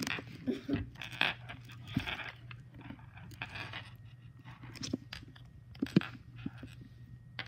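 Pink slime squeezed and stretched in the hand, giving a string of irregular short clicks and pops.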